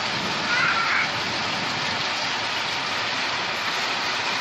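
Heavy rain pouring steadily onto the street and pavement, a dense even hiss. A brief higher-pitched sound stands out about half a second in.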